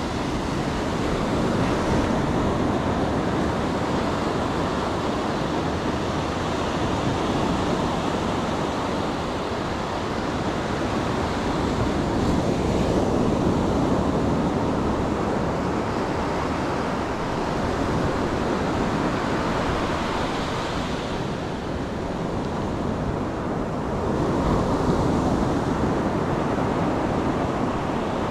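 Ocean surf breaking and washing up a sandy beach: a continuous rush that swells louder and eases off roughly every ten seconds as each set of waves comes in.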